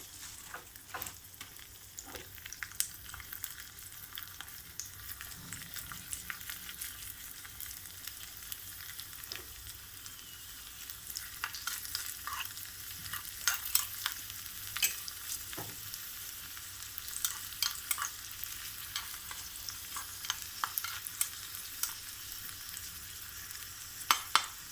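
Raisins frying in hot ghee in a pan: a steady sizzle with frequent sharp crackles and pops, busier in the second half.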